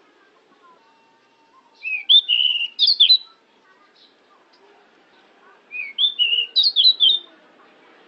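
Pied bushchat (decu) singing: two short phrases of quick, varied whistled notes, the first about two seconds in and the second about six seconds in.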